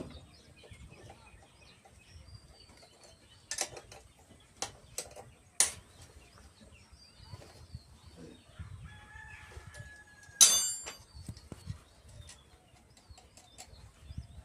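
Scattered sharp clinks and knocks of tools on metal during scooter engine repair, with one louder ringing metallic clang about ten and a half seconds in.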